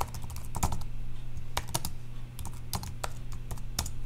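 Typing on a computer keyboard: quick, irregular key clicks as a terminal command is typed and entered, over a steady low hum.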